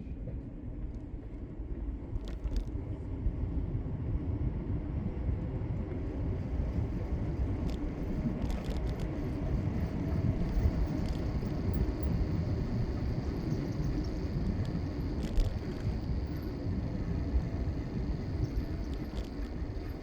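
City street sound heard from a moving bicycle: a steady low rumble of traffic and riding noise, with a few short clicks or rattles about two, eight and fifteen seconds in.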